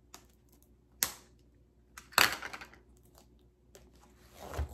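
Plastic packaging crinkling and crackling as the taped, folded package is handled and worked at: a sharp crackle about a second in, a louder, longer crinkle just after two seconds, and a swelling rustle near the end.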